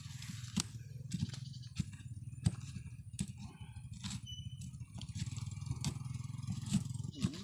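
Wooden pestle pounding in a coconut-shell bowl, crushing chilies and shallots, with sharp knocks about every two-thirds of a second. A low engine hum runs steadily underneath.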